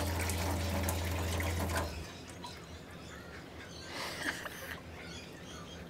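Water running from a tap fed by a Shurflo 12V diaphragm water pump, with the pump humming steadily. About two seconds in, the flow and the pump hum stop together as the tap is shut. A few faint small knocks follow.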